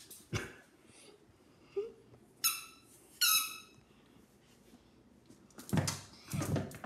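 A dog's squeaky ball squeaks twice, two short high squeaks about a second apart, as the dog mouths it. A few soft knocks come around them, and two louder scuffling bursts come near the end.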